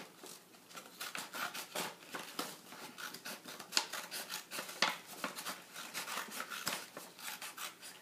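Scissors cutting through printer paper in a series of quick, irregular snips, trimming off the excess strip to leave a square sheet.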